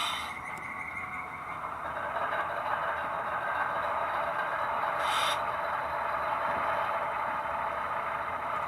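Sound-decoder recording of a GE Evolution-series (ET44AC) diesel locomotive's startup, played through an HO-scale model's small speaker: the prime mover gradually building up to idle, with a sharp burst of air hiss at the start and another short hiss about five seconds in.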